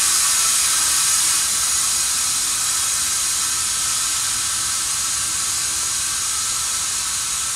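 Steady hiss of compressed air escaping from a stopped freight train's air brake hoses at the coupling between two cars, easing slightly after a second or so.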